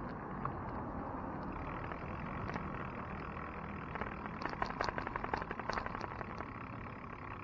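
Steady wind and road noise of a bicycle riding along a paved road, with a quick run of clicks and rattles starting about four seconds in and lasting a couple of seconds.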